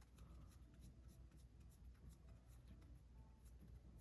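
Faint scratching and small clicks of a screwdriver turning a tight, fully threaded screw out of a Penn 320 GT2 fishing reel.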